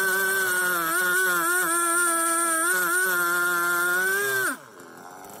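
Chainsaw running at high revs while cutting through a log, its pitch sagging slightly now and then under load. About four and a half seconds in, the throttle is let off: the pitch falls sharply and the saw runs much quieter.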